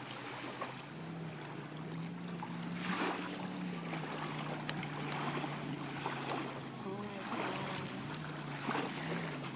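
Small lake waves lapping and washing against a sandy shore, swelling every second or two, over a low steady drone.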